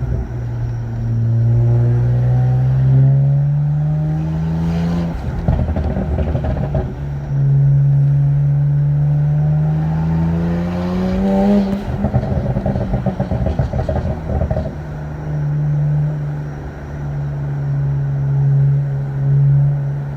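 BMW 335's turbocharged straight-six and exhaust pulling hard twice, engine pitch rising steadily each time, and each pull followed on lift-off by a burst of rapid exhaust crackles and pops. Near the end the engine settles to a steadier drone.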